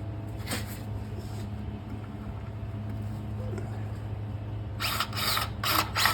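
Steady low mechanical hum, then several short noisy bursts about five seconds in from a cordless DeWalt power grease gun pumping grease into a grease nipple on the skid steer's track-tensioner cylinder.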